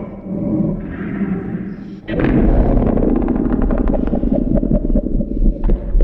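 Synthesized kaiju vocalization for Titanus Rodan, made from layered creature sounds. A rasping call fills the first two seconds, then a deeper, louder growl with a rapid rattling clicking runs through the rest.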